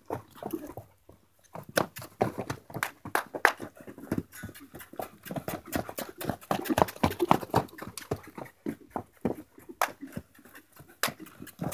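Loose horse trotting and loping around a dirt round pen: irregular hoofbeats and sharp knocks, with no steady rhythm.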